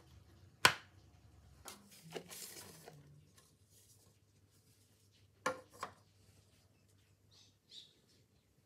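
Metal cake pans clattering as they are set down and handled: one sharp knock about a second in, a few lighter knocks, then a quick double knock about halfway. Near the end, a faint crinkle of parchment paper being peeled off the base of the sponge cake.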